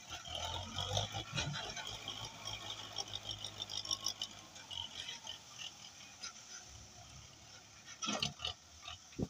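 Tractor diesel engine running with a steady low hum that fades about halfway through, under a clutter of crackles and rattles as its front loader pushes through brush and palm fronds, with a couple of sharper knocks near the end.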